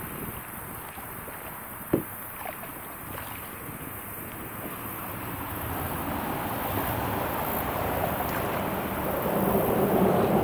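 Double kayak being paddled, with water swishing and splashing against paddles and hull, and a single sharp knock about two seconds in. A broad rushing noise swells steadily over the second half as the kayak moves in under a concrete road bridge.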